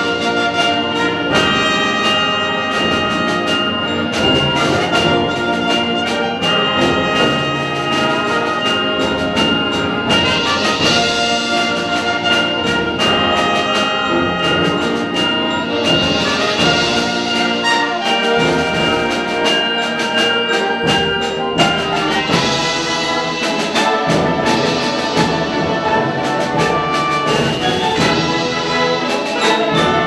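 Symphonic wind band playing at a steady, loud level: clarinets, saxophones and brass in held chords that change every second or so, with percussion strokes throughout.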